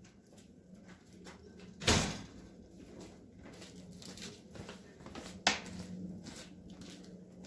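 Wood fire crackling in a small cast-iron wood stove: scattered faint ticks and pops, with a louder knock about two seconds in and a sharp pop about five and a half seconds in.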